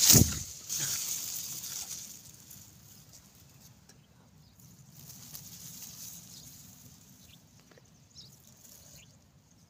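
Wheat stalks brushing against the phone's microphone: a knock right at the start, then a hissy rustling that fades out over the first two seconds. After that, quiet open-field background with a few faint, short high sounds.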